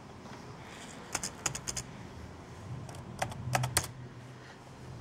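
Computer keyboard keys clacking in two short bursts of about five keystrokes each, the second burst a little louder.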